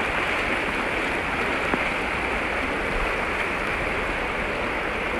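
Shallow, fast-flowing rocky stream running over and around stones, a steady rush of water.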